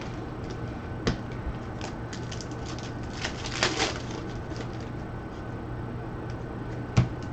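Trading cards and packs being handled: a rustle in the middle and two sharp clicks, one about a second in and one near the end, over a steady low hum.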